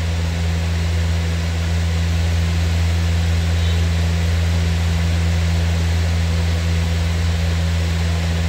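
Steady low hum under an even hiss, with no change throughout.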